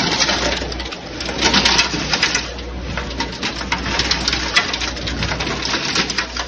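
Live crawfish clattering and scrabbling on a metal sorting table as a load slides down into a basket: a dense run of small clicks and rattles over a steady low hum.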